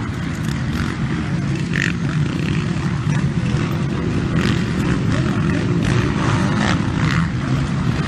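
Engines of several motocross dirt bikes revving as they race past on the track, a dense engine noise that grows louder about halfway through as the pack goes by.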